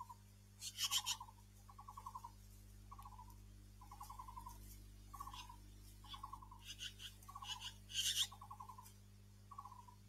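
Taiwan blue magpie giving alarm calls at a snake on the ground: a steady series of short calls about once a second, with harsh rasping notes mixed in, loudest about eight seconds in.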